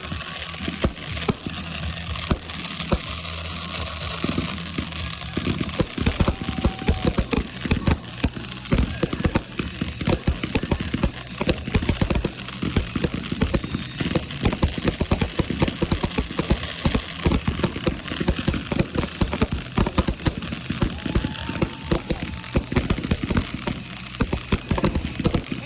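Fireworks going off in rapid succession: a dense run of sharp pops, crackles and bangs that grows thicker a few seconds in.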